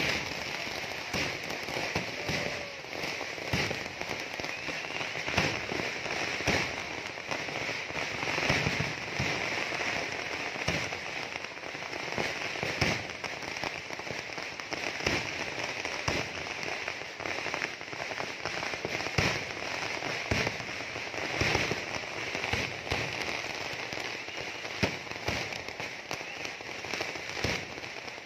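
Festival fireworks display: aerial shells and firecrackers going off in a dense barrage, with sharp bangs every second or two over constant crackling.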